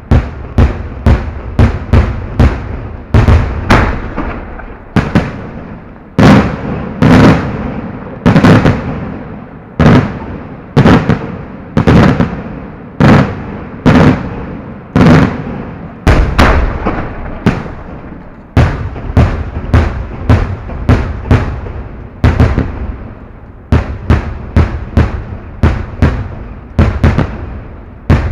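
Fireworks display at close range: a rapid string of loud firework bangs, about two or three a second. A stretch in the middle has heavier booms about once a second, each with a long echoing decay.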